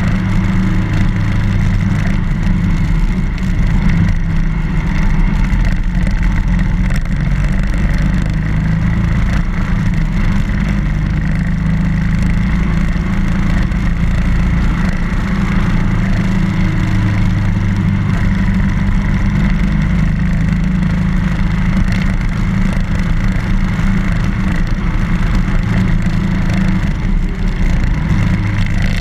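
BMW R1200GS boxer-twin engine running while the motorcycle is ridden: a steady, loud low drone whose pitch shifts slightly with the throttle.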